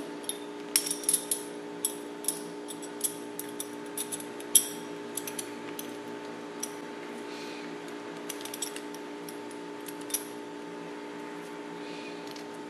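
Small clicks and clinks of a Beyblade's metal fusion wheel and clear plastic parts being handled and fitted together, frequent during the first five seconds and then only a few. A steady low hum runs underneath.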